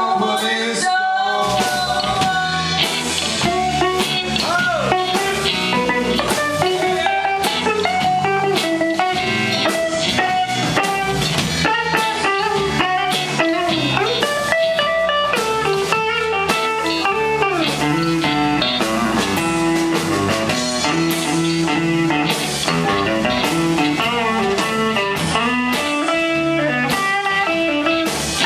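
Live blues band playing electric guitars, bass and drum kit, with the electric guitar to the fore.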